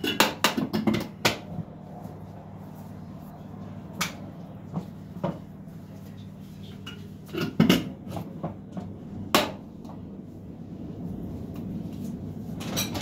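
A metal spoon clinking and knocking against a stainless steel bowl as spoonfuls of tomato and pepper paste are scraped off into it: a quick cluster of clinks in the first second or so, then single knocks every few seconds. A steady low hum runs underneath.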